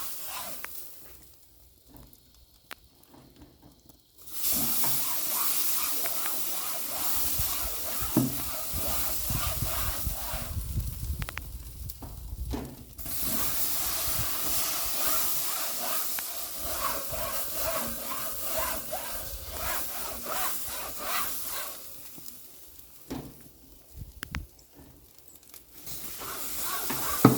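Wet sponge head of a grill steamer brush rubbed over hot grill grates, hissing and sizzling as the water flashes to steam. The hiss starts about four seconds in, breaks off briefly about eleven seconds in, and fades for a few seconds near the end.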